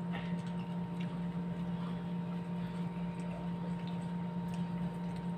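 Cooked shrimp being peeled by hand, with faint small clicks and squishes as the shell comes away, over a steady low hum.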